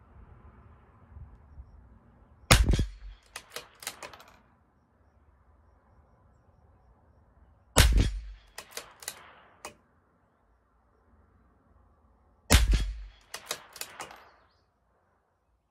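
Three shots from a CZ 457 LRP bolt-action .22 LR rifle firing Eley Force fouling rounds, about five seconds apart, each followed by a quick run of metallic clicks as the bolt is worked to eject and chamber the next round.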